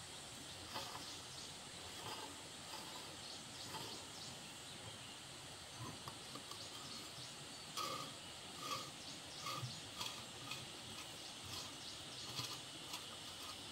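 Ratchet wrench clicking in short, irregular runs as a bolt on a small single-cylinder diesel engine's block is turned, with light clinks of the metal tool, a few louder clicks coming about eight to ten seconds in.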